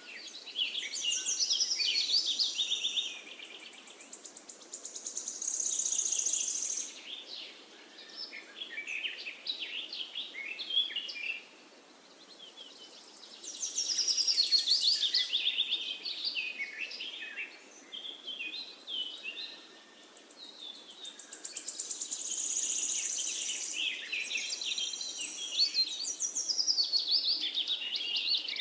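A finch singing long, high-pitched phrases of rapid trills and twitters, in bouts of a few seconds separated by short pauses, over a faint steady hiss.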